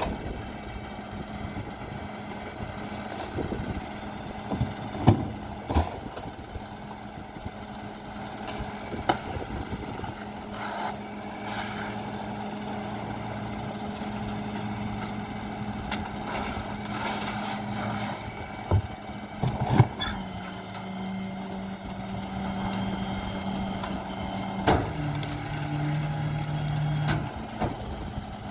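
Freightliner M2 rear-loader garbage truck's diesel engine idling steadily while plastic litter bins are knocked against the rear hopper, making several sharp clanks. The engine's hum shifts in pitch about two-thirds of the way through, and again with a clank near the end.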